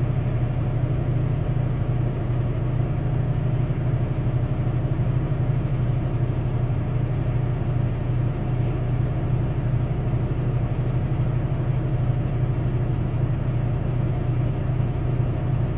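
Steady low rumble of an idling vehicle engine.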